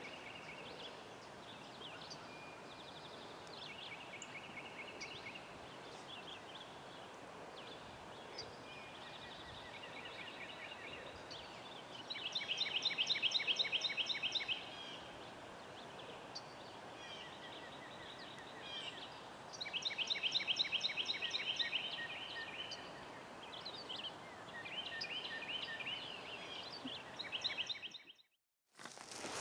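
Songbirds singing in woodland, many short high calls, with two louder rapid trills of about two and a half seconds each, about twelve and twenty seconds in. The sound cuts off abruptly near the end.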